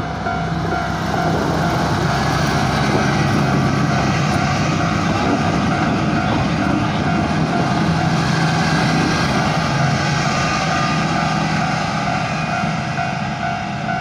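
Level-crossing warning bell ringing steadily while the sightseeing train's diesel locomotive runs through the crossing, its engine hum swelling toward the middle and easing off near the end.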